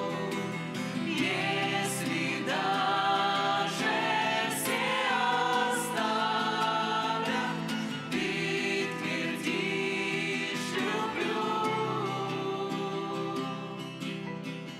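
A Christian song: several voices singing a melody together over instrumental accompaniment.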